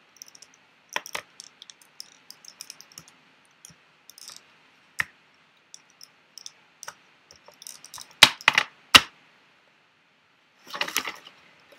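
Plastic segments of a 48-piece Rubik's snake puzzle clicking as they are twisted and handled on a glass tabletop: scattered light clicks, three sharp loud clicks about eight seconds in, and a quick rattle of clicks near the end.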